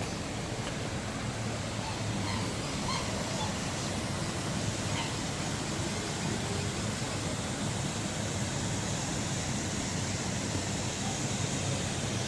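Fountain water splashing steadily into a pond, with a few faint bird chirps in the first few seconds.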